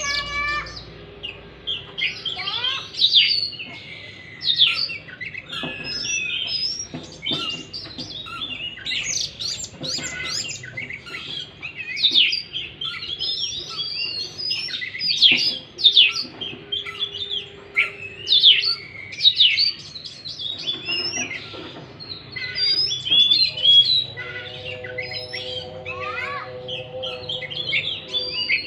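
Oriental magpie-robin (kacer) singing: a fast, varied run of loud whistles, chirps and trills.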